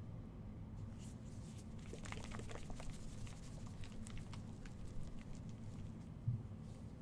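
A bottle of Blitz Silver Care Polish being handled and shaken in a gloved hand: faint, irregular small taps and rustles for a few seconds, then a soft low thump near the end.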